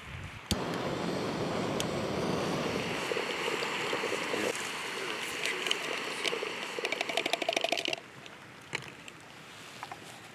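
A steady rushing noise begins with a click about half a second in and stops abruptly about eight seconds in. Near its end comes a run of quick scraping strokes from a spoon stirring in a plastic mug. A few small clicks follow in quieter surroundings.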